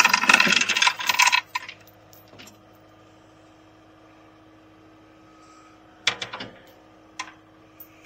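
Steel chain rattling and clinking as it is handled: a loud burst of rattling in the first second and a half, then a short cluster of clinks about six seconds in and one more a second later.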